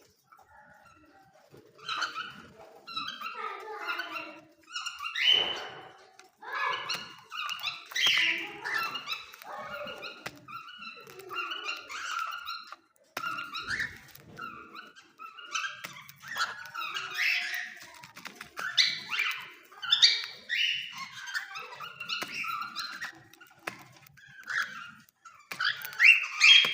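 Parrots calling: a string of short squawks and chirps, one after another with brief pauses.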